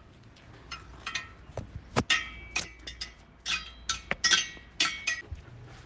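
A string of light metallic clinks and knocks, several with a short bright ring, coming in quick irregular clusters, the densest in the second half, over a low steady hum.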